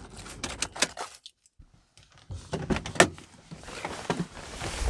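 Rattling and clicking of small hard objects being handled, stopping briefly after about a second, then resuming with a sharp knock about three seconds in.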